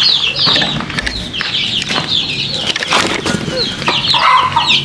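Backyard chickens calling without pause: a rapid stream of short, high, falling calls, with a few lower clucks and several brief thumps.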